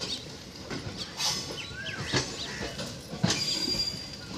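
Passenger coaches rolling slowly past with no locomotive at their head, pushed in reverse, their wheels clacking over the rail joints roughly once a second. A bird calls now and then with a short rising-and-falling chirp.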